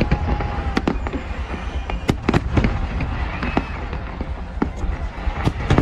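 Aerial fireworks shells bursting: about a dozen sharp bangs at uneven spacing, some close together, over a continuous low rumble.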